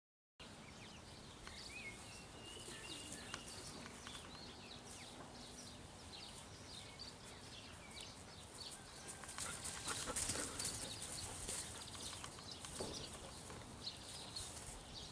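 A puppy and a Belgian Shepherd dog playing: faint scuffling and rustling, with a few short high squeaks near the start.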